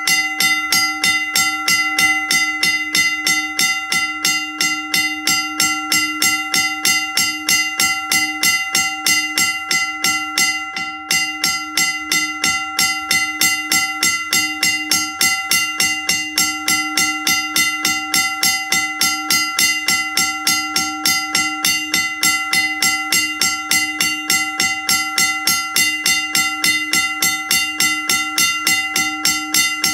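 L.S. Brach 1-A "Max-a-tone" mechanical railroad crossing bell, run off a battery, ringing continuously: its hammer strikes the cast gong about three times a second, each stroke ringing out into the next.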